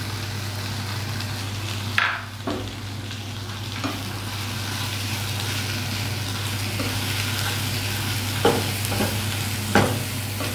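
Mushrooms, bell peppers and coriander being stirred with a spatula in a hot granite-coated nonstick frying pan just taken off the gas: a steady sizzle, with the spatula knocking against the pan a few times, about two seconds in and twice near the end.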